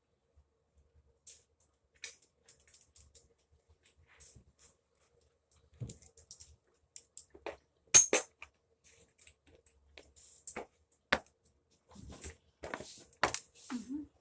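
Scattered metallic clinks and knocks of tools and parts being handled. The loudest is a sharp clack about eight seconds in, with a cluster of knocks near the end.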